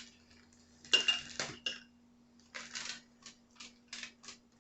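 Kitchen utensils and dishes clinking: one sharp clink with a brief ring about a second in, then a run of light taps and clicks.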